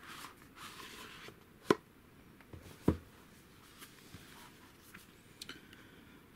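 Hands handling a cardboard Blu-ray box set and its packaging: rustling at first, then two sharp knocks about a second apart, with a few light taps later.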